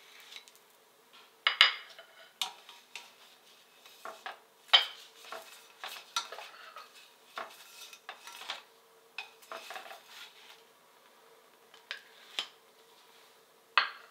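Plastic slotted spatula knocking and scraping against a stainless steel frying pan and ceramic plates as pancakes are lifted out and set down: a string of sharp clinks and clatters with short pauses between, loudest about a second and a half in and again near five seconds in.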